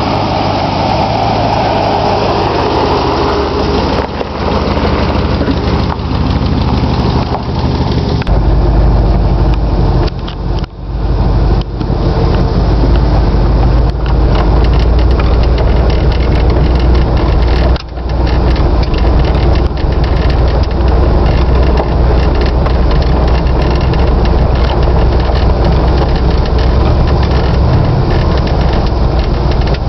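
1964 Ford F-100 pickup's engine idling steadily with the hood up, its deep low hum getting stronger about eight seconds in.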